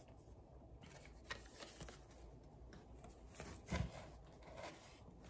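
Quiet handling noises as box items and packaging are rustled and moved, with scattered light clicks and a soft knock a little under four seconds in.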